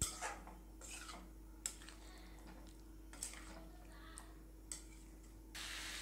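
A steel spatula scrapes and stirs potatoes through thick masala in a metal kadai, in short, irregular strokes about a second apart. Near the end a steady frying sizzle comes in.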